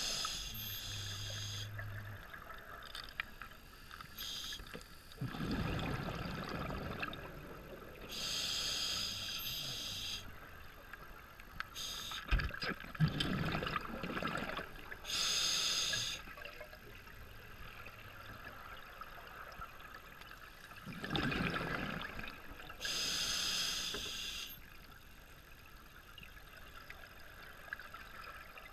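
Scuba diver breathing through a regulator underwater: four high hissing inhalations, each a second or two long, alternating with three surges of bubbling exhaust.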